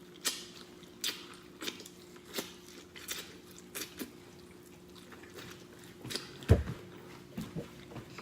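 Wet, open-mouthed chewing and lip smacking, one sharp smack about every three-quarters of a second for the first four seconds, then a pause. About six and a half seconds in comes a single low thump, the loudest sound, followed by a few softer smacks.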